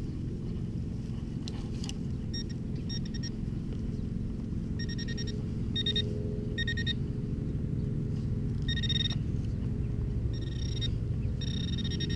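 Short electronic beeps from a metal detector, all at one mid-high pitch, coming in irregular groups that grow more frequent and longer toward the end: the detector sounding off on a metal target in the ground. A steady low rumble runs underneath.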